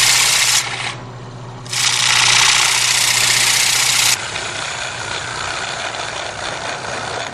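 Wood lathe running with a hand-held turning tool cutting into a spinning oak bowl, over the steady hum of the lathe. There are two stretches of loud hissing cut: the first ends just after the start, the second runs from about two to four seconds in, and the cutting is quieter after that. The tool is cleaning up a shallow circular recess in the bowl's centre.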